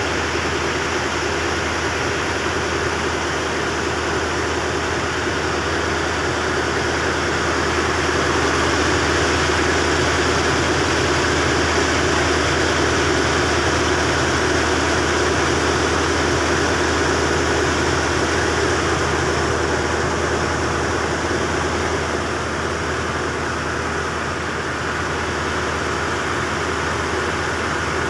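A small boat's engine running steadily under way, a low drone over a steady hiss, heard from aboard. It grows a little louder from about eight seconds in, and eases back after about twenty-two seconds.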